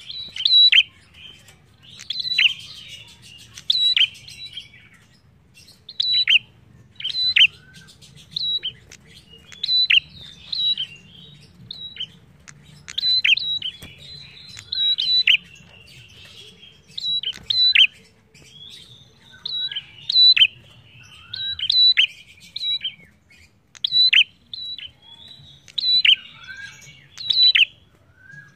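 Caged prenjak singing energetically: sharp, high chirps that drop quickly in pitch, given in short clusters about once a second, over a faint low hum.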